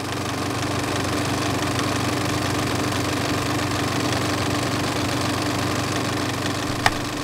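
Film projector running: a steady mechanical whir and clatter over a low hum. A single sharp click comes near the end.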